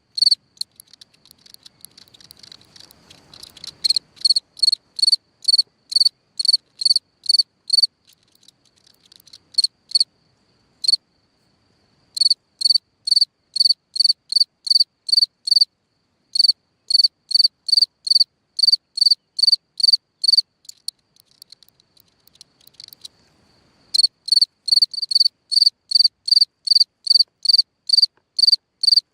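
A cricket chirping: clear, high chirps about three a second, in long runs that break off for a second or two a few times and start again. A fainter, continuous high trill fills some of the gaps.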